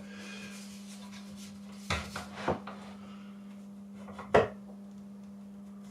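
A few sharp knocks and clicks from a plunge router being handled while its cutting depth is set by hand, with the motor off: two small knocks about two seconds in, then a louder knock later.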